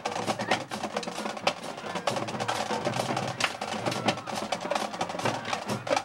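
Marching band drums playing a fast rhythm of sharp snare hits and stick clicks.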